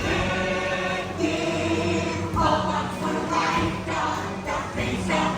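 A chorus of voices singing a show-tune finale over musical accompaniment.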